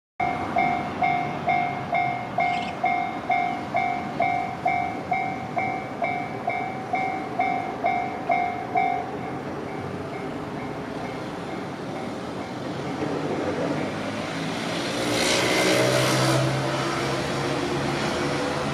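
Japanese level-crossing warning bell dinging about twice a second, then falling silent about nine seconds in as the warning ends. Later a vehicle passes close by, its noise building to a peak about fifteen seconds in.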